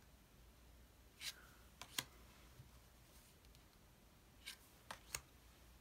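Faint clicks and light slides of tarot cards being handled and laid down one on another: a few soft taps about a second or two in, the sharpest near two seconds, and three more near the end.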